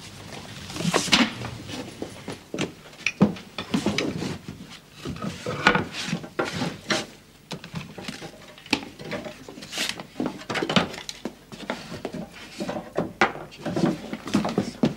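Wooden floorboards and slats being pried up and handled: irregular knocks, clatters and scrapes of wood on wood.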